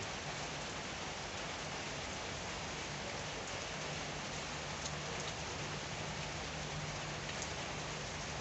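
Steady rain falling: an even hiss with a few sharper individual drop hits now and then.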